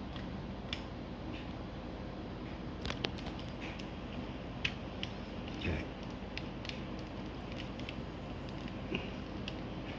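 Scattered small clicks and scrapes of razor blades and a screwdriver working into the seam of a plastic phaser toy's shell, over a steady low background noise.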